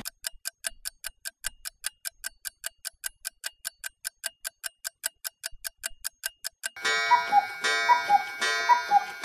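Clock ticking fast and evenly, about five ticks a second, marking the wait while the cookies bake. About seven seconds in, music with a repeating chiming melody comes in over the ticks.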